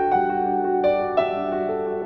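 Soft background piano music: a few notes struck over held chords.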